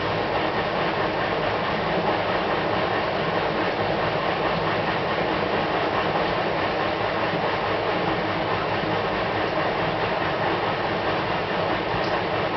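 Panasonic NA-VX73GL drum washing machine running with a steady, loud abnormal noise during operation, the sign of a fault.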